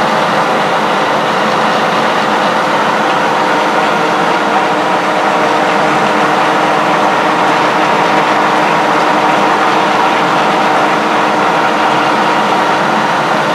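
Hendey tool-and-gear lathe running under power, its electric motor and headstock gear train spinning with a steady whir and several held tones.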